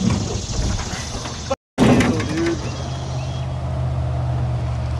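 Rustling noise, a brief dropout about one and a half seconds in, then the steady low hum of a boat's motor running.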